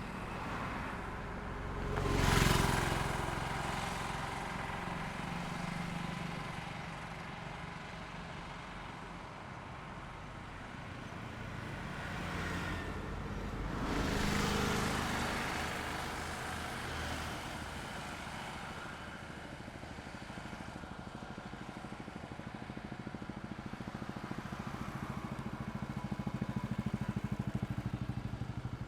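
Highway traffic: vehicles passing by one after another, with one loud pass about two seconds in and another around fourteen seconds. Engine noise builds again near the end.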